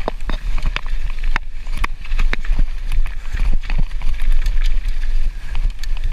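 Mountain bike rattling over a rough downhill trail: irregular sharp clicks and knocks from the bike and tyres on dirt and stones, over a steady rushing noise and heavy wind rumble on the microphone.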